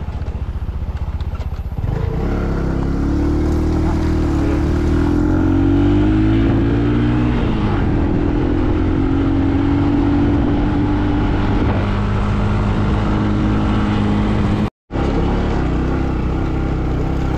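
Motor vehicle engine running steadily while driving slowly up a rough, bumpy track. The engine gets louder about two seconds in, and its note steps down twice, about halfway through and again a few seconds later. The sound drops out for a split second near the end.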